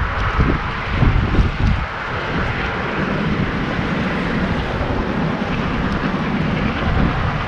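Wind buffeting the microphone in gusts, settling after about two seconds into a steady rushing noise.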